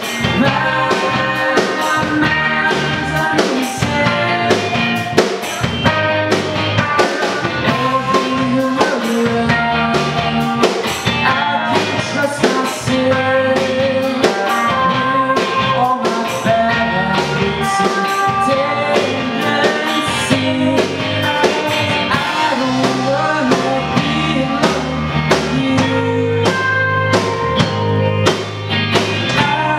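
Live rock band playing: two electric guitars, one a Telecaster-style guitar, over a drum kit keeping a steady beat.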